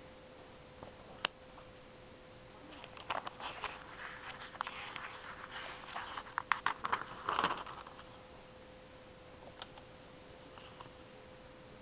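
Newspaper coupon inserts being handled and turned: crinkling paper rustle with many small crackles, strongest between about three and eight seconds in, after one sharp click about a second in. A faint steady hum runs underneath.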